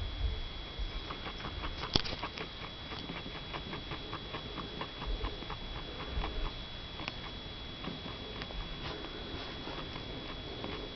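Guinea pig chewing pieces of apple and tomato threaded on hay, an irregular run of small crisp clicks and crunches, with one sharper click about two seconds in.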